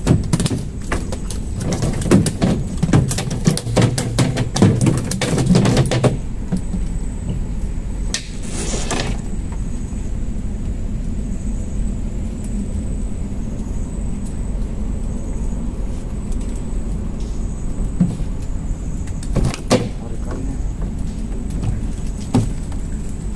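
Rapid clatter and knocks of gear being handled on a small fishing boat's deck, dense for about six seconds, then a steady low rumble with a short rush about eight seconds in and a single knock near the end.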